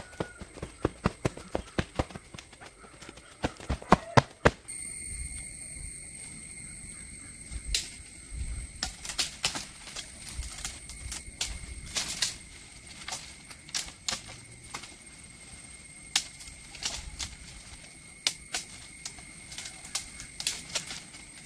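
Sharp wooden knocks of poles and branches being worked: a quick run of them in the first four or five seconds, then scattered knocks through the rest, over a steady high-pitched whine.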